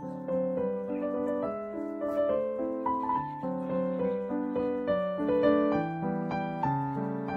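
Background piano music: a gentle melody played note after note, each note struck and fading.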